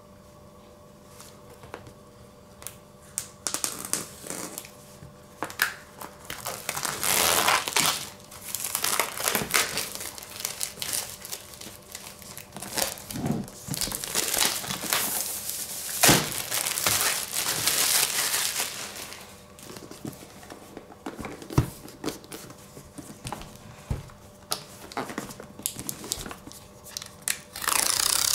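A cardboard product box being opened and handled: a blade slitting its seals, then irregular rustling, scraping and crinkling of cardboard and paper with scattered taps and clicks. Near the end a longer, louder scrape as the paper sleeve slides along the box.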